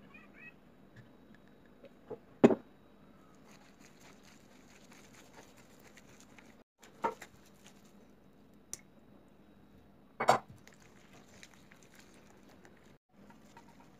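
A gloved hand kneading a minced chicken mixture on a plate: faint, soft squishing, with three short, louder knocks about two and a half, seven and ten seconds in.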